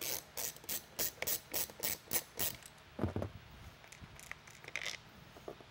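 Ratchet wrench clicking in a quick run of strokes, about three a second, as it backs out a bolt holding a siren speaker's driver to its housing. About three seconds in comes a deeper knock, then a few lighter clicks.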